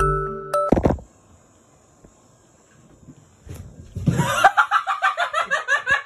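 A person laughing hard in a rapid string of short pulses, about six a second, starting about four seconds in. Before that, a glockenspiel-like music tune ends abruptly about a second in.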